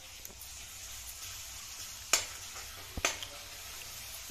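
Fresh garlic, green chilli and coriander paste sizzling in hot mustard oil in a kadhai while being stirred, with a steel spoon knocking twice against the pan about a second apart.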